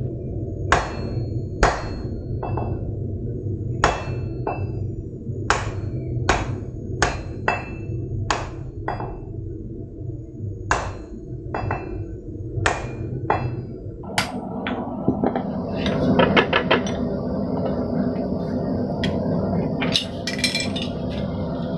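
Hand hammer striking hot steel on an anvil, unevenly spaced blows with a short metallic ring after each, while the edges of the fullered grooves on a square bar are eased before twisting. About two-thirds of the way through the blows stop and a steady rushing noise comes in, with a couple of quick clusters of clinks.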